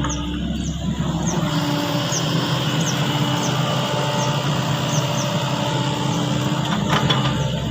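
Sany excavator's diesel engine running steadily. Its low rumble drops away about a second and a half in and returns near the end.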